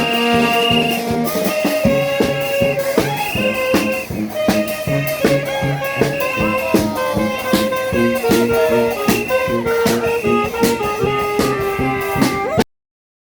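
Charanga street band playing: brass and saxophones holding and moving between notes over a steady, evenly spaced drum beat. The music cuts off suddenly near the end.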